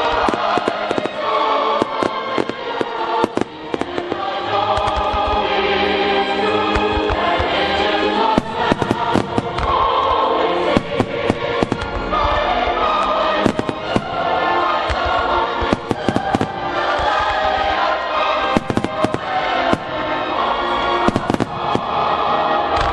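Aerial fireworks bursting and crackling in rapid, irregular succession over music with a choir singing.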